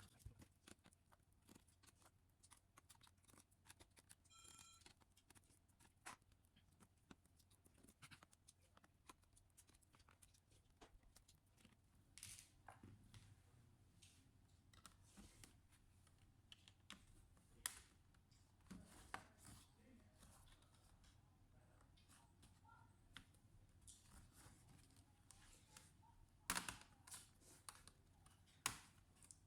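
Faint, scattered clicks and taps of a laptop and small parts being handled, with a louder cluster of clicks near the end. A short high-pitched tone sounds once, about four seconds in.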